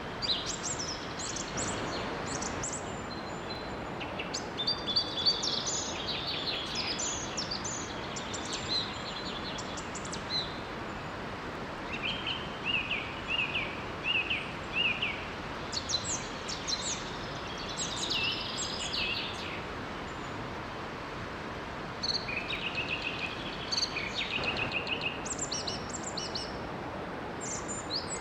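Several songbirds singing in repeated bursts of quick, high chirps and trills over the steady rush of a small forest waterfall.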